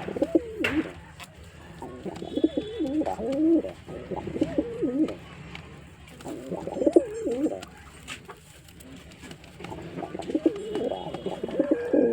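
A male white domestic pigeon cooing in repeated rolling, warbling phrases, about five bouts with short pauses between them and a longer pause a little past the middle.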